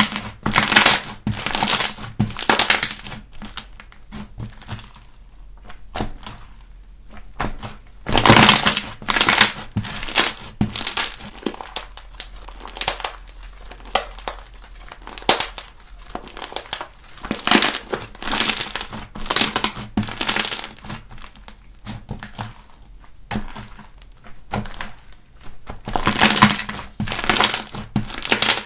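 Slime being squeezed and pressed by hand, giving off crunchy crackling in repeated bursts, some loud and some soft.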